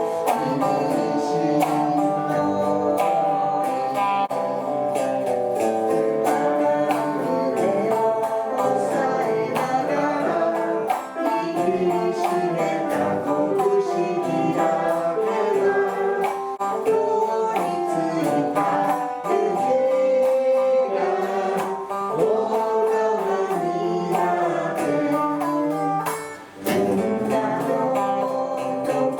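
Band music with guitar to the fore and a steady beat.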